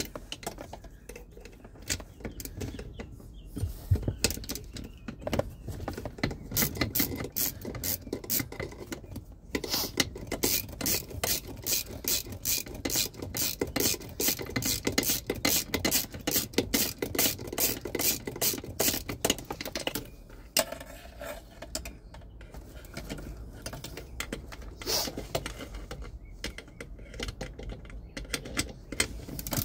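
Socket ratchet clicking in long quick runs of strokes, loosening the bottom nuts that hold the HBB ABS brake master cylinder unit to the firewall. The clicking is densest through the middle and thins to scattered clicks near the end.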